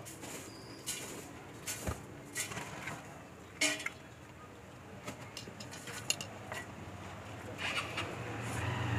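Scattered light clinks and taps of steel utensils as puffed rice (mudhi masala) is prepared and mixed in a stainless-steel tin, over faint traffic. A low steady rumble comes up near the end.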